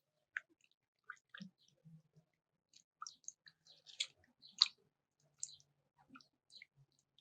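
Irregular light clicks and taps from handling food and utensils in a kitchen. Two sharper clicks come a little past the middle.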